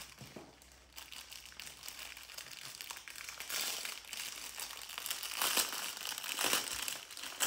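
Clear plastic bag of diamond-painting drill packets crinkling as it is handled and turned over, in bursts that get louder from about halfway through.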